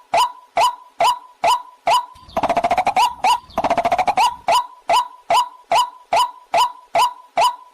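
Recorded waterhen calls played as a lure: a short, loud note repeated evenly about twice a second, broken a little over two seconds in by two rapid rattling runs of about a second each before the steady calling resumes.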